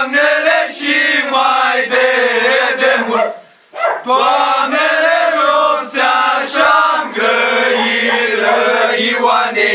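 A group of young men singing an old Romanian antiphonal Christmas carol (colindă) together, unaccompanied, in long held notes, with a short pause for breath about three and a half seconds in.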